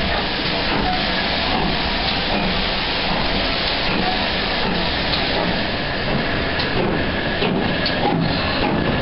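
Steam locomotive working hard at the head of a train, heard from an open carriage window: a steady rush of exhaust, steam and running noise, with separate exhaust beats standing out near the end.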